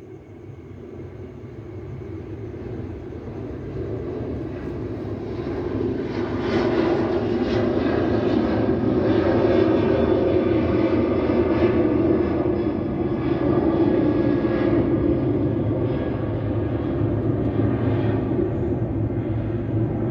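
Twin jet engines of an Airbus A330-200 at takeoff power. The sound grows steadily louder over the first six seconds as the airliner nears, then stays loud and steady.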